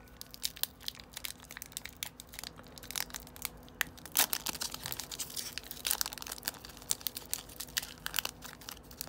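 Foil wrapper of a Magic: The Gathering collector booster pack being torn open and crinkled by hand, with many irregular sharp crackles.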